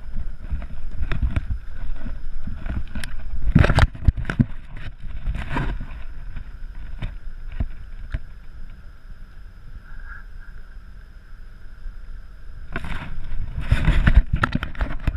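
Knocks and low rumble of handling noise on a pole-mounted action camera aboard a fishing boat. Short, loud rushes of noise come about four seconds in and again near the end.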